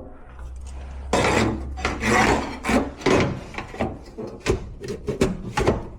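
Rubbing and scraping close by, with repeated sharp knocks and clicks, over a low steady hum for the first few seconds.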